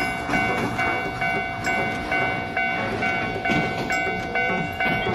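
Railway level-crossing warning bell ringing in a steady repeating pattern, a little over two strikes a second, over the running noise of a passing train.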